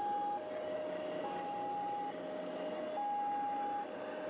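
Two-tone police siren, a high and a low note alternating, each held a little under a second.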